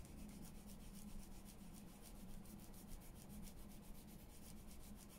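Faint, quick, even rubbing of a baby wipe over shiny printed paper, dabbing and wiping to lift ink off.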